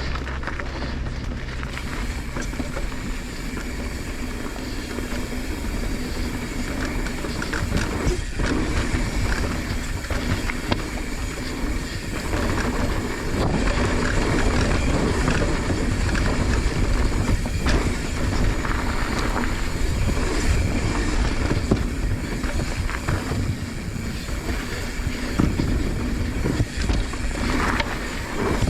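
Mountain bike riding down a dirt jump line, heard from a helmet- or bike-mounted GoPro: wind rushing over the camera's microphone along with tyres on dirt and the bike rattling, with scattered sharp knocks from bumps and landings.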